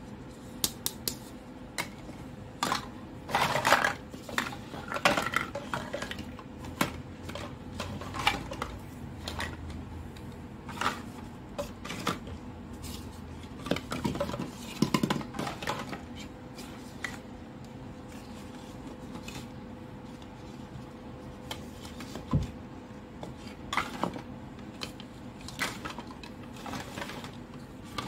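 Hollow plastic toy fruits being handled and knocked against one another: irregular clicks, taps and clattering, busiest in short flurries a few seconds in and again around the middle.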